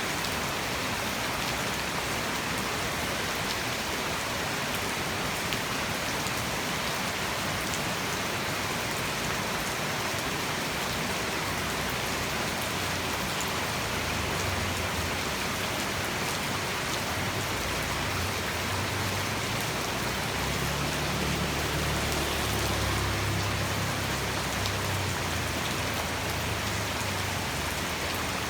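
Heavy tropical rain falling steadily, a dense even hiss of drops. In the second half a low rumble swells and then fades.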